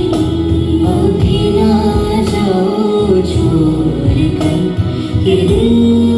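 A song with a female lead vocal, played loudly through a speaker driven by a TPA3255 class-D amplifier board that takes its signal from a Bluetooth decoder board.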